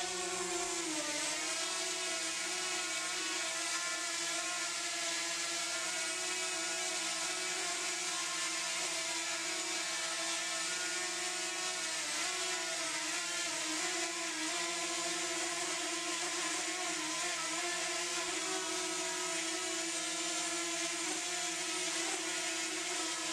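DJI Mavic Mini quadcopter hovering in place, its propellers giving a steady whirring whine whose pitch wavers slightly as it holds position.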